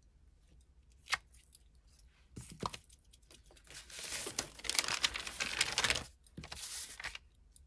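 Paper and card handling: a few light clicks and taps, then about two seconds of loud rustling and scraping as a stamped card is lifted and slid about on a paper-covered craft table.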